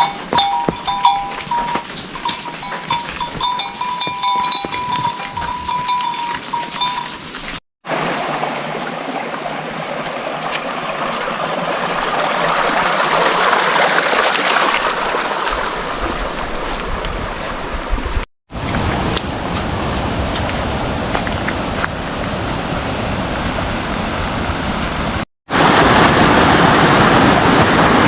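Livestock bells clinking and ringing for about eight seconds. After abrupt cuts this gives way to a steady rushing of water that swells and fades, with a thin high tone held through the middle stretch and louder rushing near the end.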